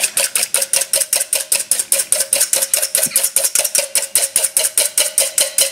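Wire whisk beating an egg white in a bowl: rapid, even clicking strokes against the bowl, about eight or nine a second, whipping air into the white.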